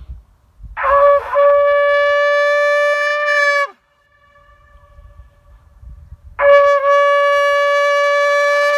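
A medieval-style horn blown in two long blasts on the same steady note, each about three seconds, with a pause between; the first starts with a rough sputter before settling. It is hard to blow.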